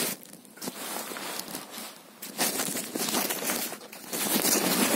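Shiny black barber cape being handled and rustled close to the microphone: a crinkling, rustling noise that comes and goes, with short lulls about half a second in and about two seconds in.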